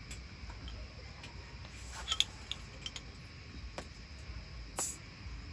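A few light clicks and taps over a faint steady background: a cluster about two seconds in and a louder, brief scrape-like noise near the end.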